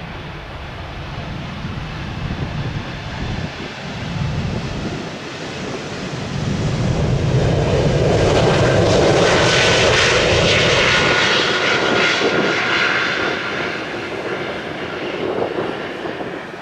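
Embraer E195-E2 airliner's twin Pratt & Whitney PW1900G geared turbofans at takeoff power during the takeoff roll. The jet noise grows louder to a peak with a steady whine about halfway through as the aircraft passes, then fades as it rolls away down the runway.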